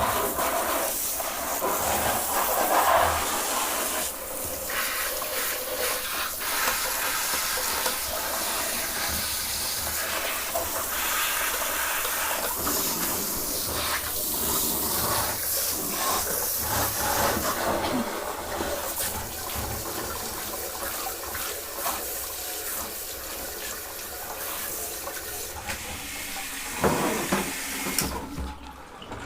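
Shower hose spraying water over a Naumann 65 sewing machine, a steady hissing splash as it is rinsed down, cutting off near the end.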